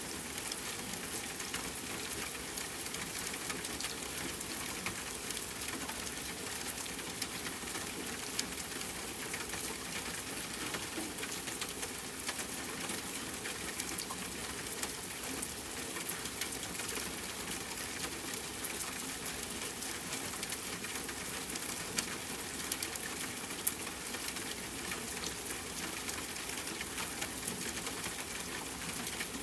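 Steady rain falling: an even hiss with scattered sharp ticks of single drops striking a surface.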